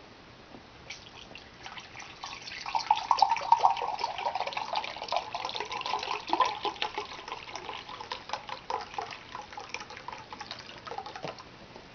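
Beef broth poured from a carton into a glass measuring cup, a liquid stream splashing into the cup. It starts about a second in and tails off near the end.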